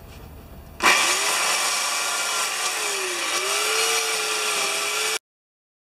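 Small corded electric chainsaw starting up about a second in and running as it cuts bark off a log; its motor pitch sags and recovers as the chain bites into the wood. The sound cuts off abruptly near the end.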